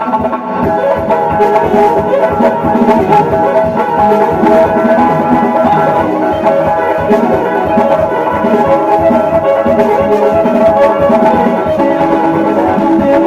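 Music with drums and percussion playing steadily.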